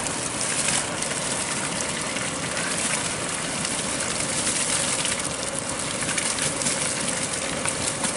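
Soaked rice pouring from a plastic basin into a large pot of boiling biryani stock: a continuous hissing, splashing pour over a steady noisy background.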